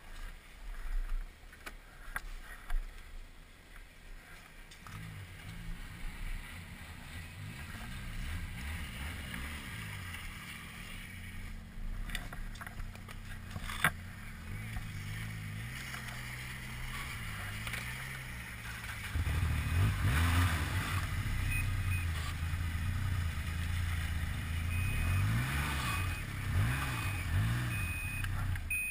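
Snowmobile engines running close by. A steady engine sound comes in about five seconds in, a louder one joins about two-thirds of the way through, and near the end the pitch rises and falls several times as a sled revs and pulls past.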